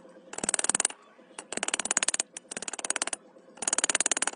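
A hammer tapping rapidly and lightly on a metal crown bottle cap resting on a steel stand, in four quick runs of taps, each under a second long, shaping the cap into a cutting disc.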